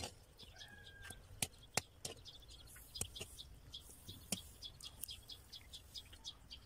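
Small birds chirping repeatedly, with a few sharp clinks of a metal slotted ladle against a cast-iron kazan as boiled tongues are lifted out of the broth.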